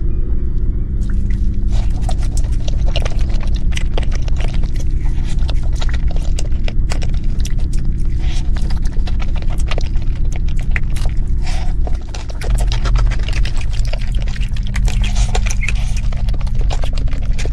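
Loud, distorted eating sounds from biting into and chewing a layered cake, full of crackles and clicks, over a steady low droning hum.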